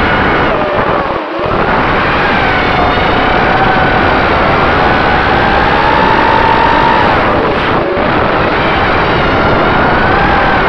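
Mini race quad's brushless motors and propellers whining, the pitch sliding up and down with throttle over a steady rush of wind and prop wash, heard from the onboard camera. The sound dips briefly about a second in and again later.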